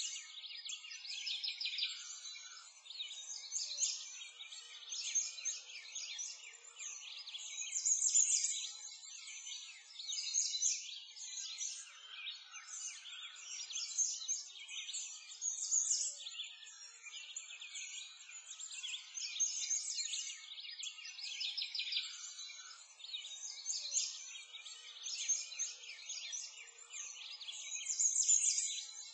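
A dense chorus of many small birds chirping and trilling without pause, all high-pitched with no low sounds beneath.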